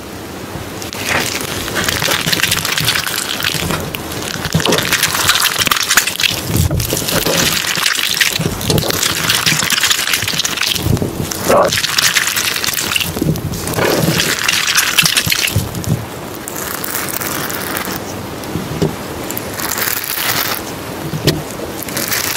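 Rain-and-thunder ambience track: a steady rain hiss that swells and eases every few seconds, with low rumbles of thunder. Layered, sped-up spoken affirmations are mixed low beneath it, too faint to make out words.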